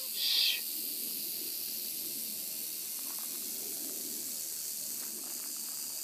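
Western diamondback rattlesnake rattling its tail in a steady, unbroken high buzz, the defensive warning of a coiled snake. A brief, louder higher sound breaks in just after the start.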